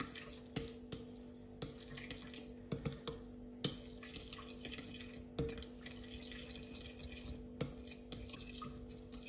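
Metal spoon stirring a liquid marinade in a glass mixing bowl: soft wet stirring with scattered light clinks of spoon against glass, over a faint steady hum.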